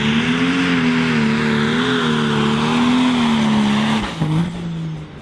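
John Deere 4050 pro stock pulling tractor's turbocharged diesel engine running at full throttle under the load of the weight sled, its pitch wavering up and down. About four seconds in the throttle comes off at the end of the pull, and the engine note drops and quiets.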